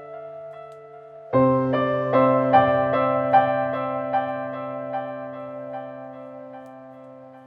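Background piano music: a soft chord struck about a second in, then a slow line of single notes over it, fading gradually.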